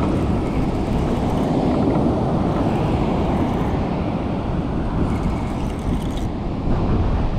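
Steady rumble of surf with wind buffeting the microphone.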